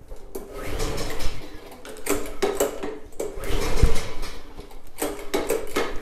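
Tecumseh VLV55 engine on an Ariens walk-behind mower being pull-started with its recoil cord: about four pulls roughly a second and a half apart, each a short whirring crank. The engine does not catch.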